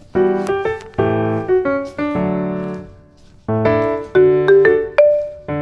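Background piano music: chords and single notes struck and left to fade, with a brief lull about three seconds in.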